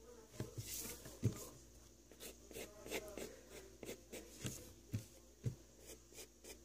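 Pencil lead scratching across paper in short, repeated strokes while sketching, faint, with a few soft low knocks in between.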